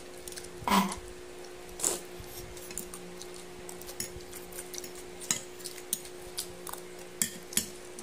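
Metal fork and spoon clicking and scraping against a plate while eating noodles and rice: a scatter of short sharp clinks, with two louder short noises in the first two seconds.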